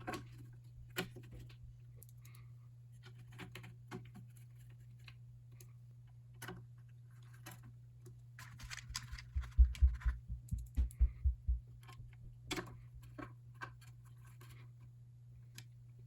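Light clicks and taps of tools and metal parts as the main CPU board is put back into the Meade LX200 Classic telescope's base, with a quick run of about eight louder knocks around ten seconds in. A faint steady low hum lies under it.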